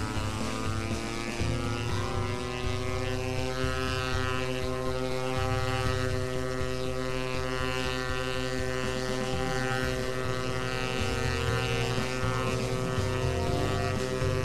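Air Tractor AT-502XP's PT6A turboprop engine and propeller running on the ground for a dynamic propeller-balance run: a steady drone with a rising pitch that settles in the first two seconds.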